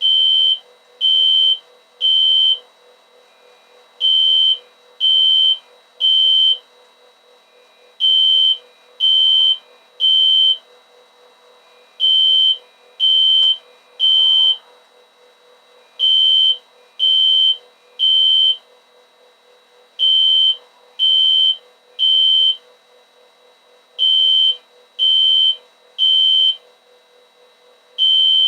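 System Sensor SpectrAlert Classic fire alarm horn sounding under test: loud, high-pitched beeps in sets of three, each set followed by a pause and repeating about every four seconds, the temporal-three evacuation pattern.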